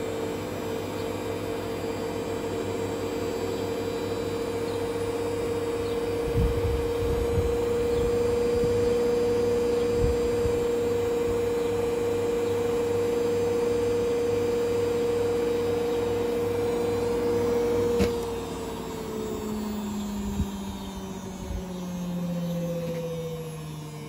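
Beko WM8120 washing machine spinning with a steady motor whine. About eighteen seconds in there is a click and the whine falls steadily in pitch as the drum slows down.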